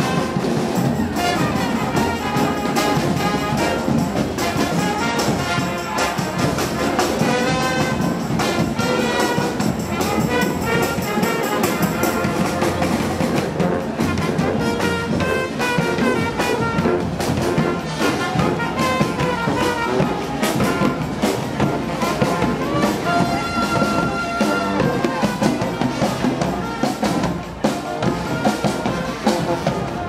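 Street brass band playing a lively tune, with trumpets and trombones.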